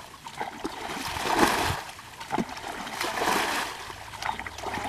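Muddy water splashing as a black plastic bucket is dipped into a shallow pond and the water flung out, bailing the pond dry. Two main splashes, about a second in and about three seconds in.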